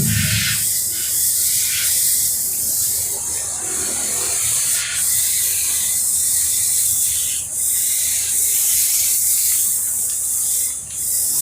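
Cleaning spray hissing steadily against an air conditioner being washed, with a couple of brief breaks.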